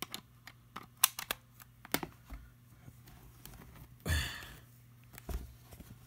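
Scattered clicks and light taps of hands handling a USB charging plug, cable and tablet as the charger is plugged in, with a short rustle about four seconds in.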